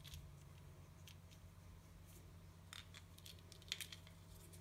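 Near silence: room tone with a steady low hum and a few faint, short ticks scattered through it.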